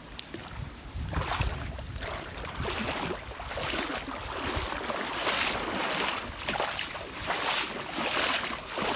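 Water sloshing and splashing in repeated surges, about one a second.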